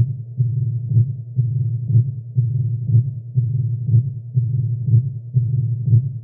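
Heart sounds of a heart with mitral stenosis, heard through a stethoscope: a sharp beat about once a second, with a low rumbling murmur filling the gaps between beats.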